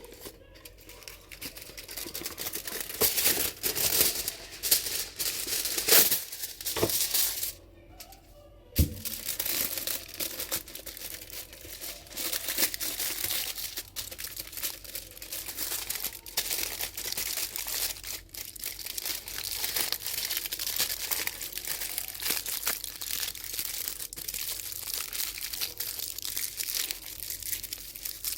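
Dense crinkling and crunching with many small sharp clicks, stopping briefly about eight seconds in and then running on steadily.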